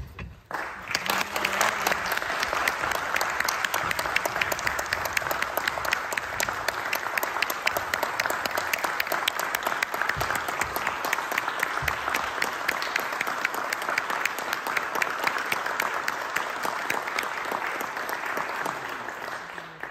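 A roomful of people applauding: dense, steady clapping that starts about a second in and dies away near the end.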